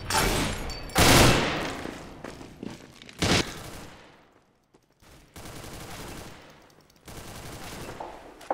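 Video game gunfire from a first-person shooter: a shot at the start, a louder one about a second in with a long fading tail, and another short shot just past three seconds. Quieter steady noise follows.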